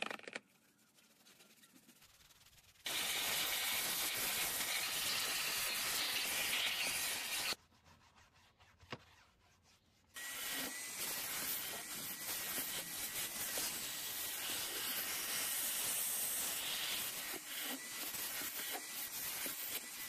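Stiff detailing brush scrubbing foamed cleaner into a car door panel: steady scratchy rubbing, in two spells, starting about three seconds in, pausing for a couple of seconds around eight seconds, then resuming about ten seconds in.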